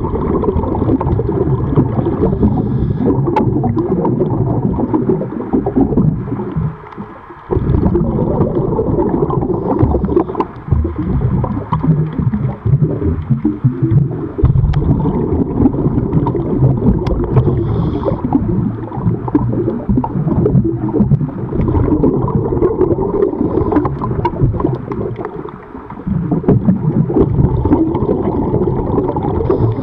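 Loud underwater rumbling and gurgling of water and bubbles around a diver, picked up through the camera's underwater housing, with two short lulls.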